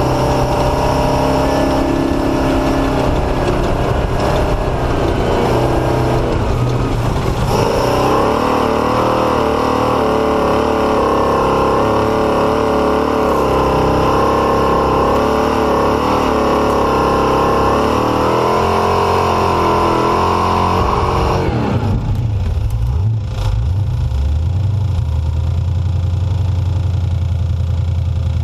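A vehicle engine running steadily. Its pitch climbs about a quarter of the way in and holds high, rising and falling slightly, then drops sharply about three-quarters of the way in to a low, steady rumble.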